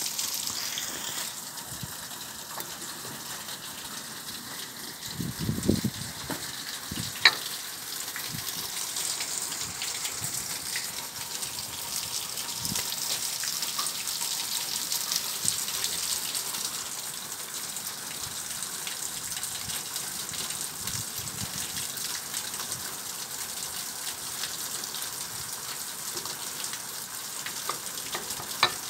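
Steady hissing background noise, over which a few dull knocks and two sharp metallic clicks are heard as the metal parts of a disassembled centrifugal pump are handled.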